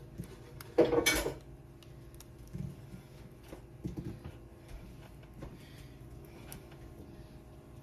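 Kitchen cookware clattering briefly about a second in, followed by a few light taps and clicks of utensils.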